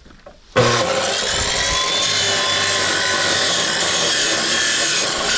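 Hitachi CC14SF abrasive cut-off saw switched on about half a second in, then running loud and steady as its disc cuts a 15 mm ring section off a metal exhaust pipe, throwing sparks.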